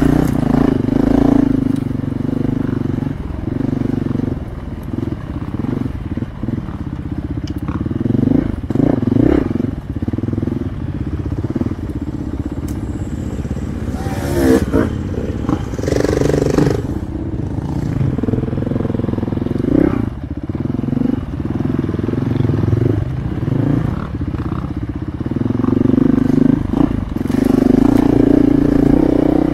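Dirt bike engine running along a woods trail, rising and falling in pitch and loudness with the throttle.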